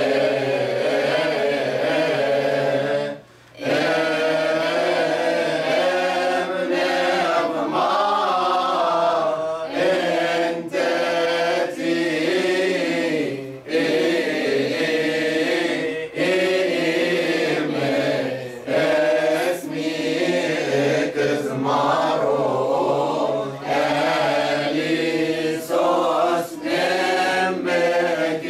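Mixed choir of men and women chanting a church hymn together without instruments, with a brief pause for breath about three seconds in.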